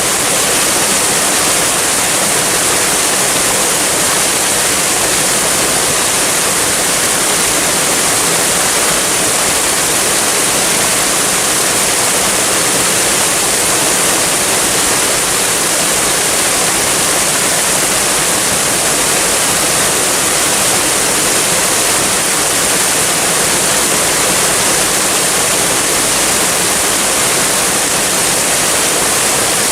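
Waterfall: a steady, unbroken rush of falling water, heavy in the high hiss.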